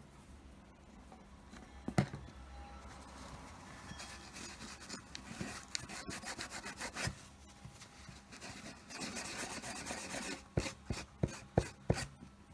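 Hands working on a wooden board: rubbing and scraping on the wood, with a knock about two seconds in and several sharp clicks and knocks near the end.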